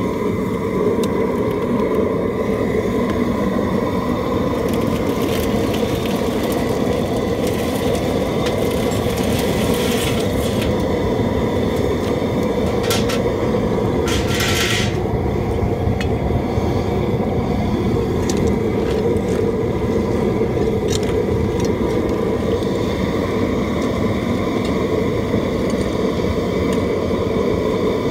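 Steady roar of a propane burner firing under a crawfish boiler, heating the pot of seasoned water and crawfish back toward a rolling boil. A brief hiss about halfway through.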